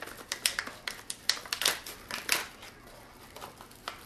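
Small plastic spice bag being handled and crinkled open, an irregular run of sharp crackles and clicks that thins out after about two and a half seconds.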